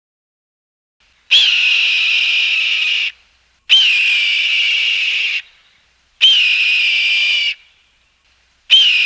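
A shrill whistle blown in long blasts, three of about one and a half seconds each and a fourth starting near the end, each with a brief chirp at the onset before settling into a steady high tone.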